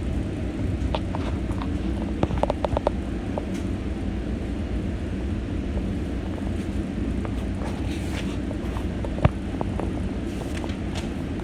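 Expo Line light-rail train running, heard from inside the car: a steady low rumble with scattered clicks and rattles, and one sharper knock about nine seconds in.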